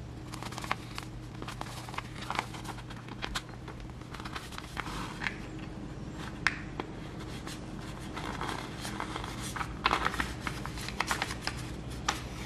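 Paper practice sheet rustling and crinkling in the hands as a needle and thread are pushed through and drawn out of its punched holes: many small scattered rustles and ticks over a steady low hum.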